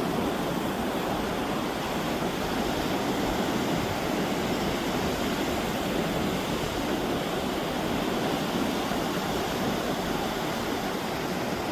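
Steady rush of ocean surf, an even noise with no distinct breaks or impacts.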